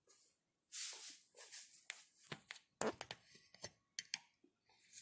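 Handling noise as the camera is picked up and carried: rustling and rubbing with a string of irregular clicks and knocks, the loudest about three seconds in.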